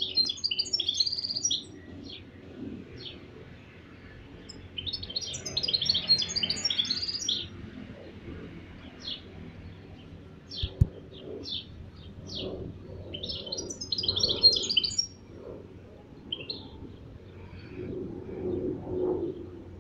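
Mestiço, a canary-and-goldfinch hybrid finch, singing: three long bursts of rapid, high twittering, each about two seconds, with single short chirps between them.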